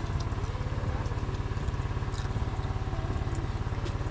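Generator engine running steadily behind the group, an even, rapid low chugging that does not change.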